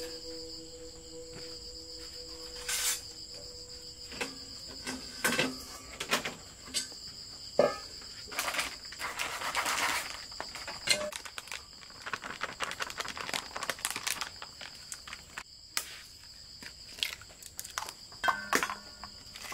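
A steady high insect drone in the background, with scattered knocks and clicks of kitchen work and a stretch of plastic-packet rustling about halfway through as a snack packet is cut open with a knife.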